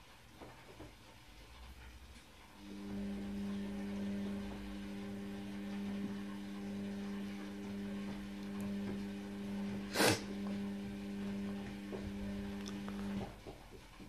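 A steady low electrical hum from a household appliance starts about three seconds in and cuts off about a second before the end, with a single sharp click about ten seconds in.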